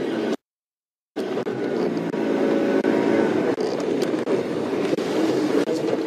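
Game-drive vehicle's engine running steadily as it drives, with road and wind rumble. The sound drops out completely for most of a second, about half a second in, then returns.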